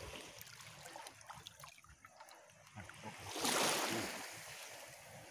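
Shallow seawater splashing and sloshing around a large stingray as it is handled, with small drips and ticks of water and a louder surge of splashing about three seconds in.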